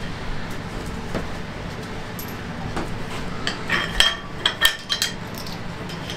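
A quick cluster of light metallic clinks about two-thirds of the way through: small steel fittings knocking together as they are handled and slipped over the engine block's cylinder studs.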